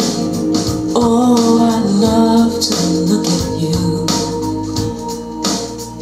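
A song playing through a pair of home-built two-way loudspeakers, with keyboards and percussion over a steady beat.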